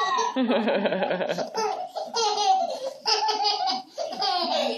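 A 13-month-old baby laughing hard in repeated bursts, a quick run of short pulses first and then separate high-pitched peals.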